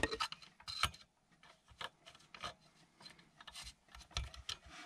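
Irregular small clicks and scraping of a screwdriver driving screws and parts being handled while a power supply unit is screwed back together after its fan replacement.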